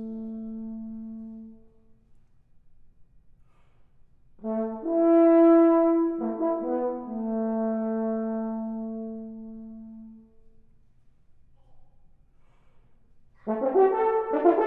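Unaccompanied French horn playing: a held low note dies away, and after a pause a phrase swells up and settles into a long held note that fades. After a second pause a loud, busy passage begins near the end.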